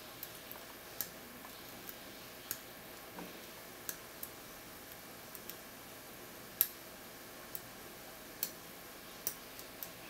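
Faint, irregular metallic clicks from a lock pick and tension wrench working the pin tumblers in the keyway of a Zenith 38 four-pin padlock. There are about a dozen clicks, with a louder one about six and a half seconds in.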